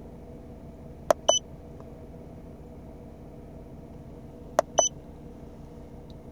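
Handheld Autel MD702 scan tool keypad: twice, a sharp click followed by a short electronic beep as buttons are pressed, over the steady hum of the car's idling engine.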